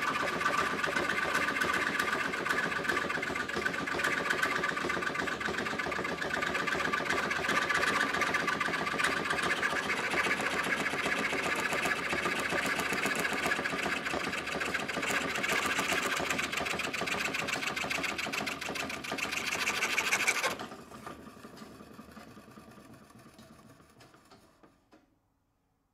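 Antique foot-pedal scroll saw by Joubert Tiersot running at speed: a fast, even clatter from its cast-iron crank, connecting rod and spring-guided blade going up and down while the blade cuts thin wood. A little over 20 seconds in, the sound drops sharply to a quieter clatter that fades out as the treadle mechanism coasts to a stop.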